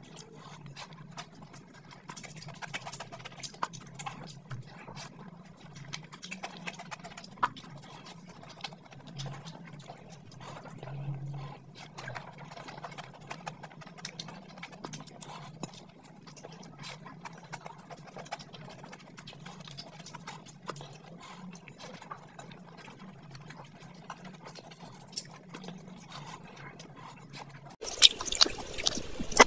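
Close-miked eating of fish biryani by hand: wet chewing, lip-smacking and mouth clicks in a quick irregular stream. Near the end the eating sounds turn suddenly louder and crisper.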